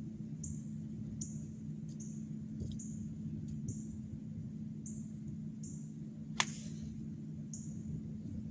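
A golf club striking the ball on a tee shot: one sharp crack about six and a half seconds in. Underneath runs a steady low hum and a string of short high chirps.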